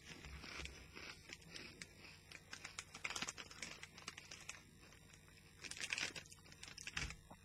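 Walkers crisps being crunched and chewed, with a crisp packet crinkling, in short, quiet, crackly bursts.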